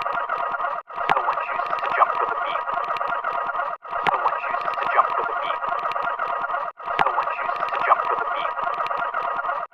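A short, dense, distorted sound effect played on a loop, repeating about every three seconds with a brief cut-out between repeats.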